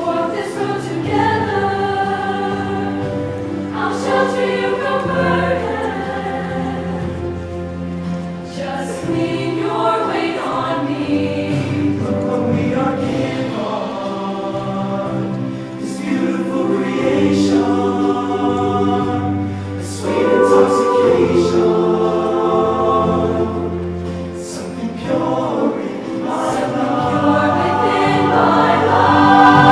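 Mixed-voice show choir singing in harmony, holding chords over steady low bass notes; it swells louder near the end.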